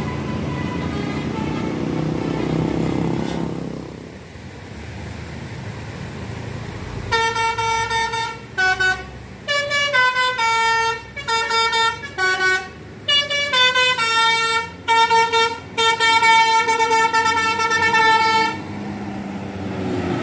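Indonesian bus telolet horn of the basuri type playing a tune: a string of short and held notes stepping up and down in pitch for about eleven seconds, starting several seconds in. Before it, a low rumble of bus engine and traffic.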